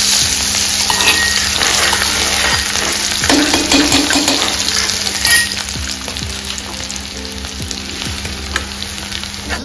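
Crushed garlic frying in hot oil in a kadai: a dense, loud sizzle, with steel spoons scraping as they stir it. The sizzle eases off somewhat about halfway through.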